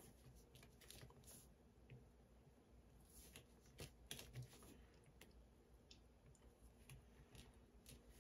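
Near silence, with faint, scattered light clicks and scratches from an electric wax-painting stylus working wax on a small card. A few slightly louder ticks come around the middle.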